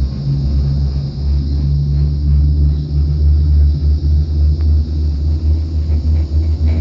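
Low, continuous rumble of a cableway gondola cabin travelling along its cable, rising and falling in level without a break.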